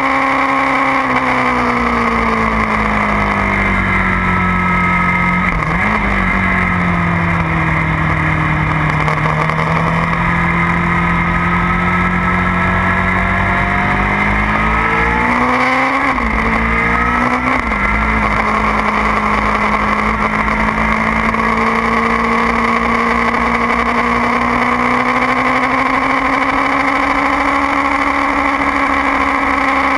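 2009 Kawasaki ZX-6R inline-four sport-bike engine at speed on a racetrack, recorded at the tail. Its pitch falls as the rider slows, with a brief blip about six seconds in, holds lower through a corner, then rises again with two quick jumps around sixteen to eighteen seconds and runs steady to the end. Wind buffeting rumbles underneath.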